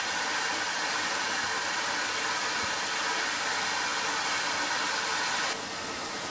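Vacuum rigged to suck up bees running with a steady rushing hiss, which cuts off suddenly about five and a half seconds in.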